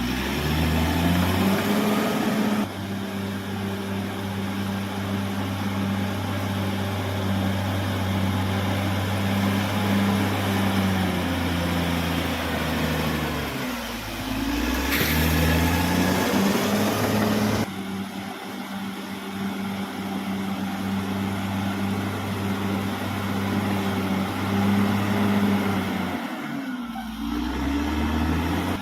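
Caterpillar D6R XL crawler bulldozer's diesel engine running hard under load. Its pitch sags and recovers twice, about halfway through and near the end, as the engine is pulled down and picks back up.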